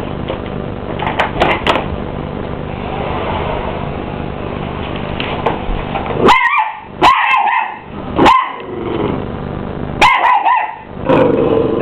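Mini English bull terrier puppy barking at a running vacuum cleaner: the vacuum's steady drone, then from about halfway in, several short, sharp barks.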